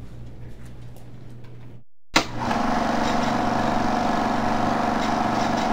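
Film projector running: a steady mechanical whirr that starts abruptly about two seconds in, after faint low room hum and a moment of silence.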